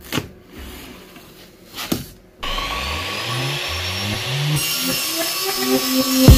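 A power saw cutting laminate flooring boards: after a couple of faint clicks it starts abruptly about two and a half seconds in and runs steadily.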